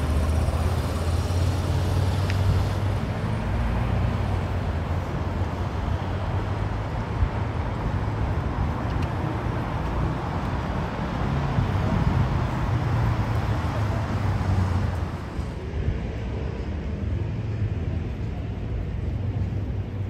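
Street traffic on a wet city road: engines running low and tyres hissing on the wet surface. A passing vehicle builds up and then cuts away suddenly about fifteen seconds in.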